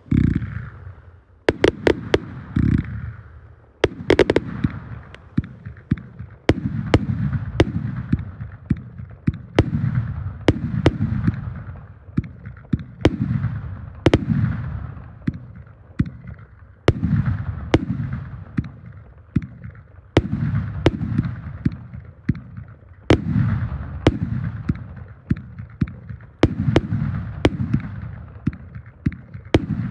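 Multi-shot consumer firework cake firing continuously: a sharp bang about one or two times a second, each followed by a low rumbling decay as the shells burst overhead.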